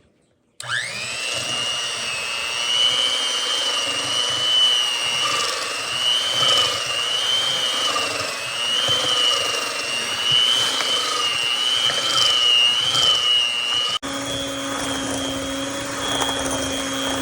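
BAIGELONG electric hand mixer switched on and running, a steady high motor whine that wavers slightly. About fourteen seconds in, the sound changes abruptly to a different steady pitch.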